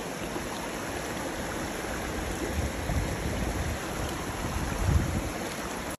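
Creek water running steadily close to the microphone, with a couple of low bumps about halfway through and near the end.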